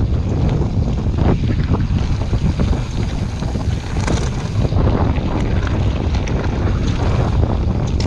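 Wind rushing over a chest-mounted action camera's microphone while a YT Jeffsy mountain bike rolls down a loose gravel trail, its tyres crunching over stones and the bike rattling with scattered clicks.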